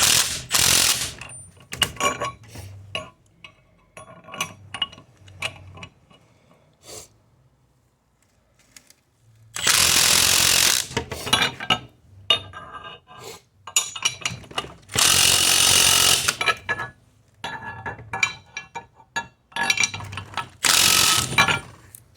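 Loud bursts of a shop power tool, four of them, each one to two seconds long, with metal clinks and tool-handling clatter in between, during work to free a stuck wheel bearing race from its hub.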